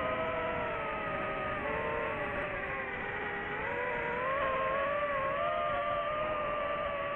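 DJI FPV drone's propeller motors whining, the pitch sagging about halfway through and climbing again as the throttle changes.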